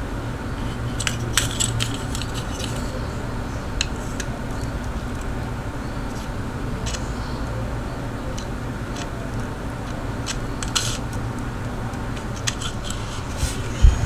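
Scattered light plastic clicks and taps from a Gerber pocket knife sharpener being turned over and handled in the fingers, with a sharper knock near the end, over a steady low background rumble.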